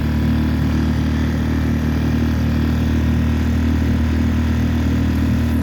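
Boat engine running steadily under way, a constant low hum that doesn't change pitch or level.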